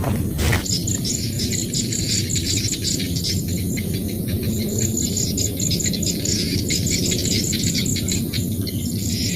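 Chorus of field insects chirping in fast, high-pitched pulses over a steady low rumble of background noise, with a brief crackle right at the start.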